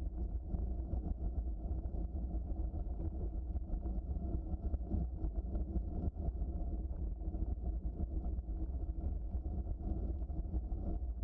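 Steady low rumble of a bicycle rolling along a trail, with a light, irregular crackle of small ticks running through it.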